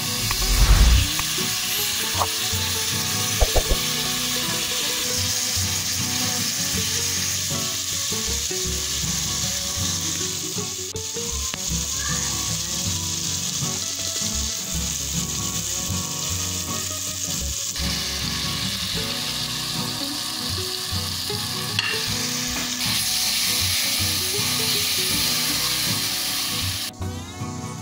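Chopped bell peppers and tomatoes sizzling as they fry in oil in a pot, stirred with a wooden spoon. There are a couple of thumps in the first few seconds, and the sizzling drops away just before the end.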